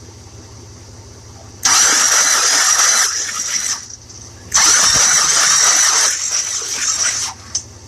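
Starter motor cranking a 1966 Buick Riviera's 425 nailhead V8 with its spark plugs removed, in two bursts of about two and three seconds, with a steady high starter whine. The engine turns over without compression after a 12-hour soak in ATF.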